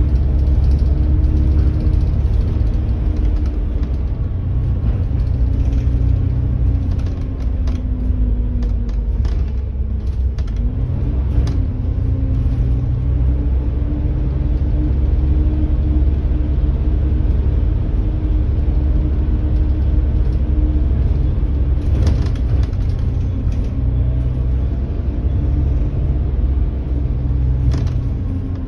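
Volvo B7TL double-decker bus under way, heard from inside on the upper deck: a steady low rumble from its six-cylinder diesel and the road, with a whine whose pitch rises and falls as the bus speeds up and slows. A few sharp knocks are heard over a bumpy road.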